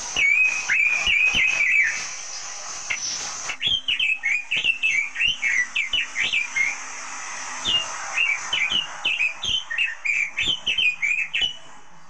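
Caged red-billed leiothrix (Pekin robin) singing: runs of quick, loud whistled notes that swoop up and down, in short phrases with brief pauses. In the first two seconds, before a cut, a different caged songbird gives a short burst of rapid whistles.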